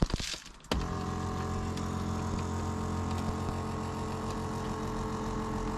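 A few handling clicks, then an electric motor in the car starts about a second in and runs with a steady, even hum for about five seconds.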